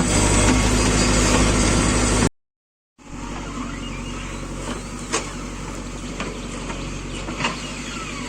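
Heavy diesel engine running steadily, then breaking off abruptly about two seconds in. After a brief silence it returns quieter, with a couple of sharp metallic clanks.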